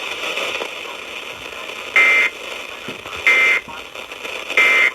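Emergency Alert System end-of-message code over FM radio: three short bursts of warbling data tones, each about a third of a second long and about a second and a quarter apart, over steady radio hiss. The code marks the end of the spoken severe thunderstorm warning.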